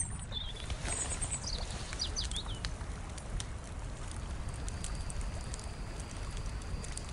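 Outdoor nature ambience: a steady low rumble like wind, with a few short, high bird chirps in the first two or three seconds. A thin, steady high whine with scattered ticks comes in about five seconds in.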